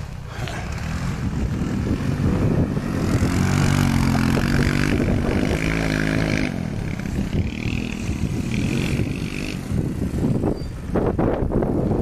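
Small off-road vehicle engine running and revving, its pitch rising and then falling over a few seconds, with rougher, uneven engine noise near the end.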